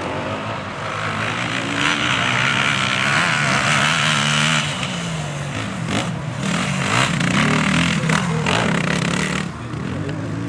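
Enduro dirt bike engine revving up and down as the rider works the throttle over rough grass. There is a rush of hiss a couple of seconds in and a few sharp knocks in the second half.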